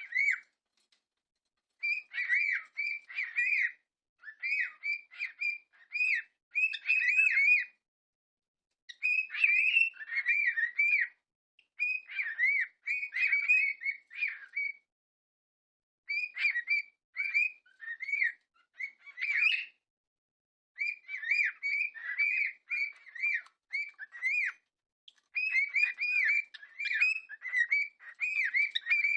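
Pet cockatiels whistling in bouts of quick, chirpy notes that swoop up and down, each phrase lasting a second or two with brief pauses between.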